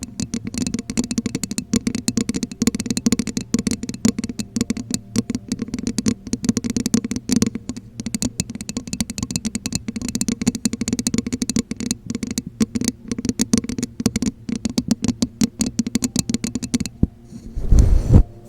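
Rapid, continuous tapping with the fingers on a hollow object that rings with a low tone. The tapping stops about seventeen seconds in, and a short, loud low thump follows.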